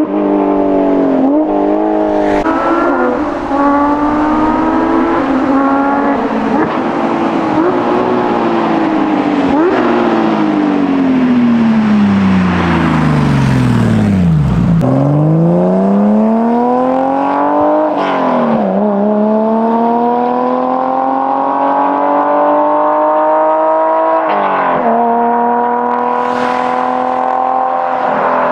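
Porsche 992 GT3's naturally aspirated flat-six, breathing through a valved stainless sport exhaust with 200-cell headers with the valves open, accelerating hard as the car drives by. The engine pitch climbs in long pulls, each cut off by an upshift: several quick ones in the first few seconds, then about 18 and 25 seconds in. The car passes closest about halfway through.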